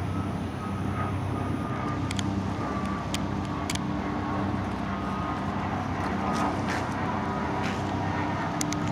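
FDNY fireboat's engines running steadily across the water: a constant low hum over an even wash of noise.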